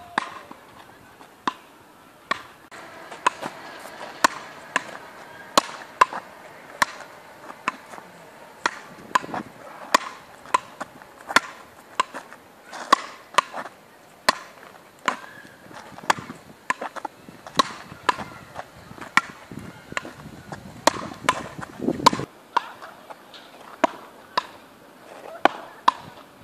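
Frescobol paddles hitting a small ball back and forth in a rally: a steady run of sharp, hard smacks about one every second or less.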